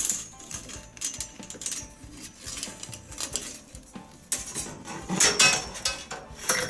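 Steel clock mainspring and spring-winder fittings clinking and rattling as they are handled. Many short metallic clicks, busiest and loudest about five seconds in.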